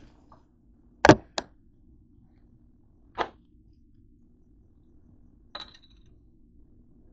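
A few sharp taps and clicks of small objects handled on a tabletop: two close together about a second in, the loudest, then single ones around three and five and a half seconds, the last with a short ring. A faint steady hum runs underneath.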